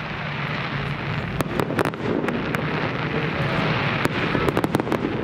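Fireworks display: a steady hiss, joined from about a second and a half in by a fast run of sharp cracks and pops from bursting shells.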